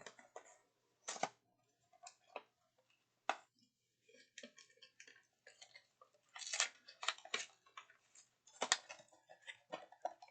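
Packaging and cards being handled: scattered sharp clicks with bursts of crinkling in between, the loudest click near the end.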